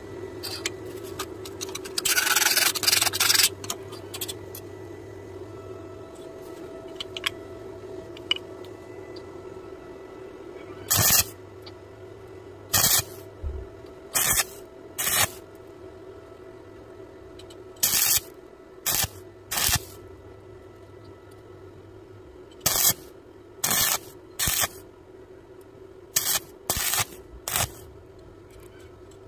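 Stick (arc) welding: a longer crackling arc burst about two seconds in, then about a dozen short crackling arc bursts, each under a second, as the electrode is struck and broken again and again to build up the weld. A steady low hum runs underneath.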